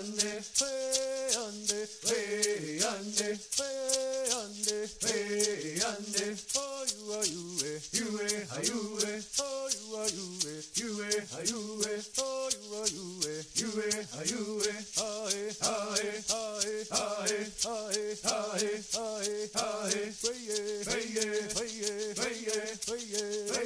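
Music: a voice singing a chant-like melody over a rattle shaken in an even beat of about three strokes a second.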